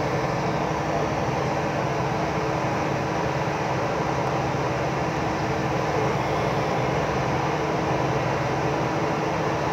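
Steady drone of a crew boat's engines and on-board machinery running, a continuous low hum with several steady tones under it.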